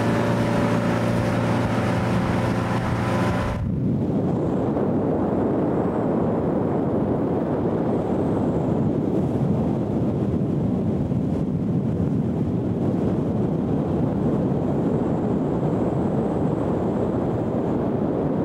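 A motorboat under way, its engine running with a steady drone. About three and a half seconds in the sound changes abruptly to wind buffeting the microphone, a dense low rumble that lasts to the end.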